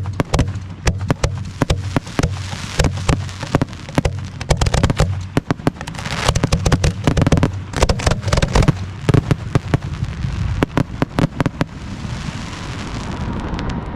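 Aerial fireworks going off in a rapid, dense barrage of bangs and crackles, thinning out near the end.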